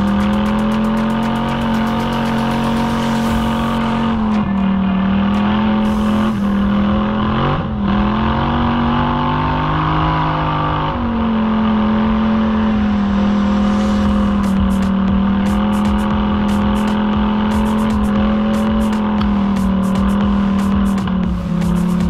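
ATV engine running under way, its pitch falling and rising with the throttle, with a sharp dip and recovery about eight seconds in. Sharp ticks and clicks come over it near the start and through the second half.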